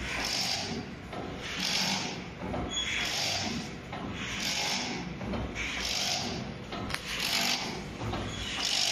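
Hexagonal wire mesh weaving machine running, with a rhythmic hissing clatter that repeats about every second and a half over a steady low rumble.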